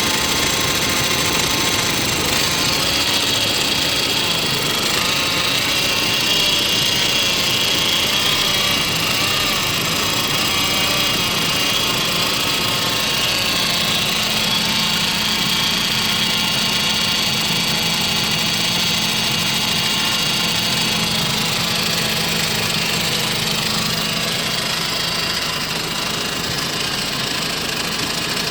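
A 2005 Saab 9-5's 2.3-litre turbocharged four-cylinder engine idling rough. It has a P0300 random-misfire code and a surging idle, which the owner suspects comes from something missing in the PCV/vacuum system.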